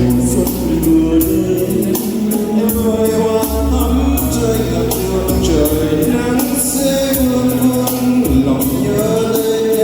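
Music with a steady beat and a sustained melody line, played loud.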